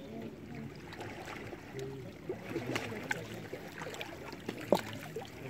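Small waves lapping and splashing against shoreline rocks, a busy run of irregular slaps and gurgles, with one sharper slap about three-quarters of the way through.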